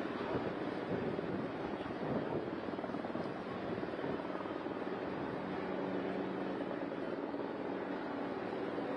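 Aircraft flying over, a steady drone with a low hum held throughout.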